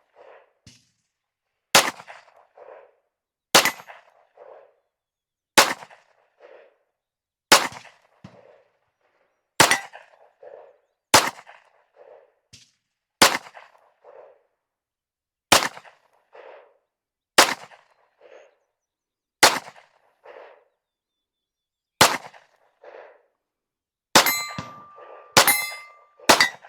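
Ermox XFire Defense 9mm pistol (all-metal Glock 19 clone) fired in slow single shots, about one every two seconds, each sharp report followed by a fainter after-sound. Near the end the shots come closer together.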